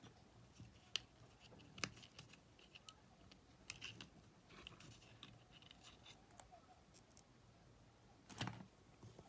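Faint close-up handling of small metal parts and tools on a cassette player's battery box: a few sharp clicks, the loudest near the end, with light scratching in between.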